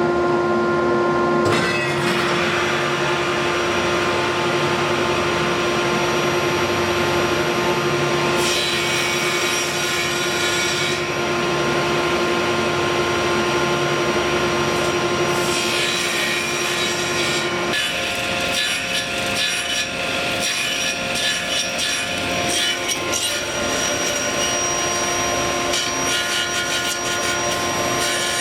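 Table saw running and cutting gates (notches) into a wooden rope-tension drum hoop held in a sled. The sound is continuous, and its character changes about eighteen seconds in.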